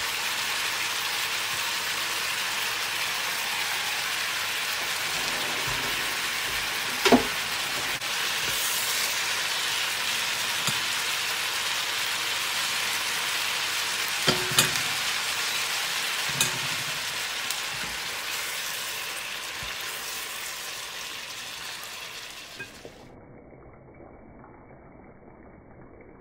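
Udon noodles and minced pork sizzling as they stir-fry in a nonstick frying pan, with a few sharp knocks of the utensil against the pan. The sizzle fades toward the end.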